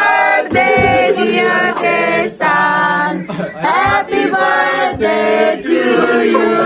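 A small group of people singing together in mixed men's and women's voices, with held notes.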